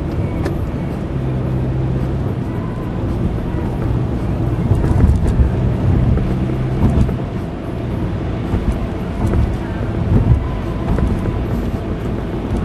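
Car driving along a road, heard from inside the cabin: a steady engine drone with tyre and road rumble.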